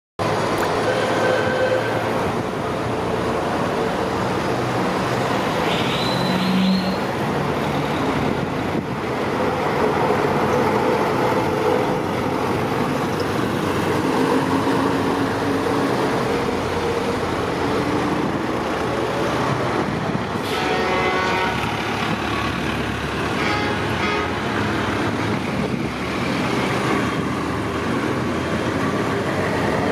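Engines of old classic lorries running as they drive slowly past in a convoy, mixed with general street traffic. A vehicle horn toots briefly about six seconds in, and more pitched toots come around two thirds of the way through.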